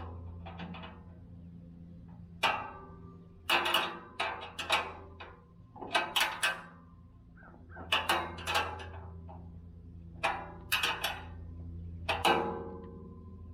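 Steel tool-cart parts clanking and knocking as they are handled and fitted: about a dozen sharp metallic hits, some with a short ring, spread irregularly over a steady low hum.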